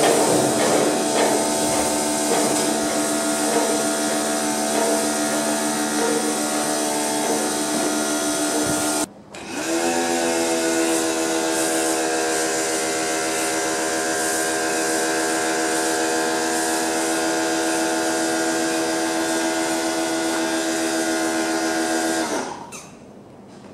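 Small electric pressure washer's motor and pump running with a steady whine and the hiss of the spray. It cuts out about nine seconds in and starts again a moment later, rising in pitch as it spins up, while the lance sprays detergent foam. It stops near the end.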